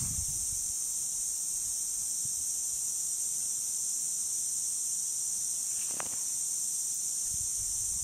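Steady high hiss of water spraying from lawn sprinklers, with one brief click about six seconds in.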